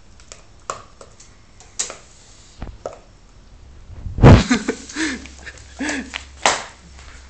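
Fox terrier puppies at play, with scattered clicks and taps in the first few seconds. About four seconds in comes a loud bump as a puppy's nose knocks against the phone, then a few short, low vocal sounds.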